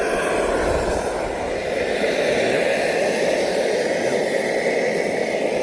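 Backpacking stove burner running steadily at full flame.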